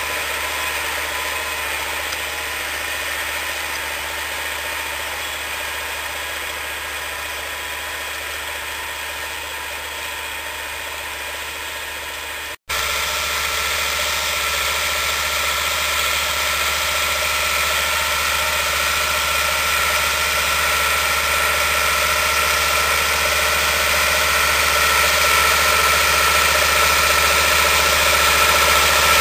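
Same Laser 100 tractor's diesel engine running steadily under load while pulling a disc plough through the soil. The sound fades slightly at first, breaks off for an instant about halfway, then grows steadily louder with a steady whine rising above the engine.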